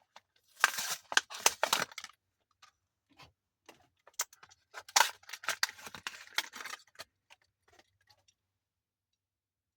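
Plastic blister packaging of a Hot Wheels die-cast car being torn and crinkled open, in two bouts of crackling with scattered clicks between.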